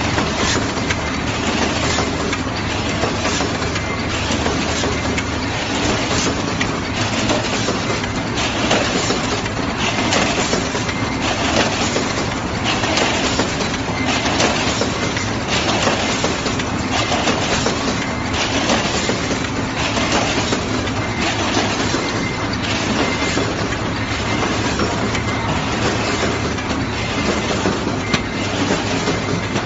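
Automatic rotary pouch-filling and sealing machine running: a steady mechanical clatter with a regular knock about once a second.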